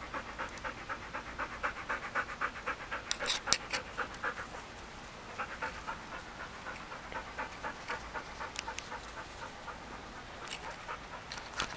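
A dog panting rapidly and steadily, about four breaths a second, with a short pause midway and a few brief clicks about three seconds in.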